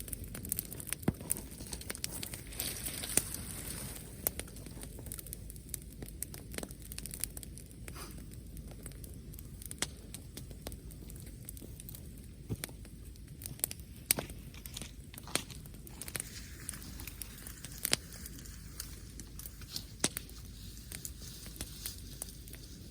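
Wood fire crackling, with irregular sharp pops scattered through it. The crackle is busier for the first few seconds, then thins out.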